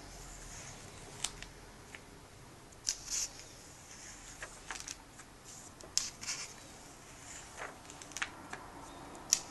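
Paper pages of a comic book being turned by hand: a short, crisp flick and rustle every second or two.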